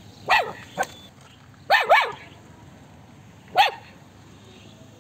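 Small puppy barking: five short, high barks, each falling in pitch, two of them close together in the middle.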